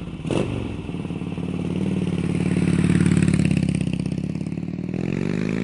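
Motorcycle engine starting with a sharp bang, then running with a rapid pulsing beat that swells and eases off, and revving up near the end.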